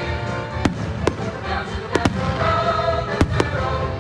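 Aerial firework shells bursting with sharp bangs, about six in four seconds, two of them close together about two seconds in, over music playing throughout.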